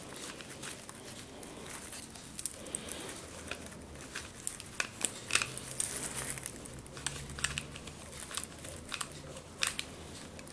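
Light crinkling and rustling of metallic mesh ribbon being handled, with scattered small sharp clicks, as a bauble is pressed into a wreath.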